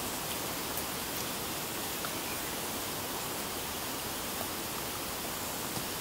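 Steady, even rushing hiss with a few faint ticks.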